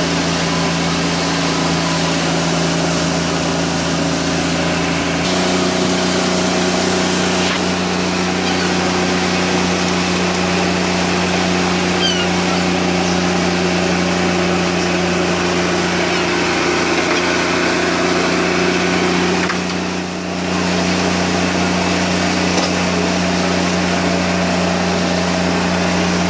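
Boat engine running steadily over wind and water noise. About five seconds in it steps up to a higher engine speed and holds there.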